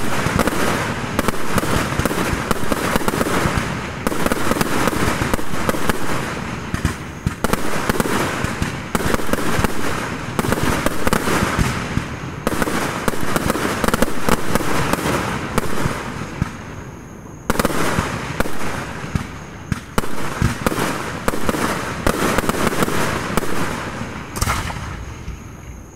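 Dense barrage of aerial firework shells launching and bursting, the reports following one another almost without pause. The firing eases briefly about two-thirds of the way through and dies down near the end.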